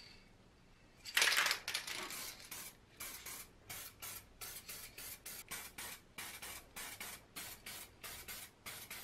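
Aerosol can of Baufix 2-in-1 metal protection spray paint spraying: one long hiss about a second in, then a rapid series of short bursts, two or three a second.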